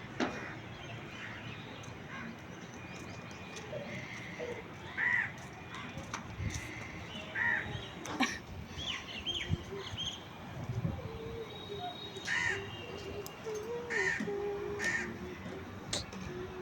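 Crows cawing: about five separate caws, spaced a few seconds apart.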